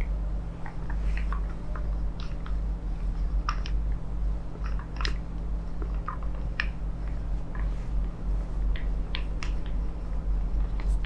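Close-miked rubbing with irregular soft clicks and crackles as a wooden massage tool and hands work over the neck and shoulders, over a steady low hum.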